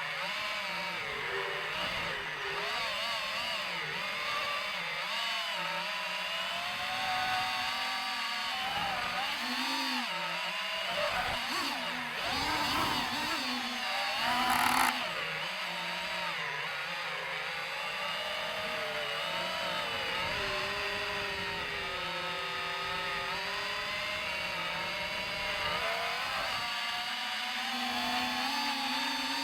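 DJI FPV drone's electric motors and propellers whining in flight, the pitch rising and falling continually as the throttle changes, with a brief louder surge about halfway through.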